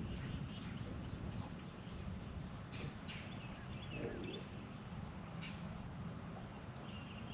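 Quiet open-air lake ambience: a steady low rumble with faint scattered bird chirps and a few light clicks.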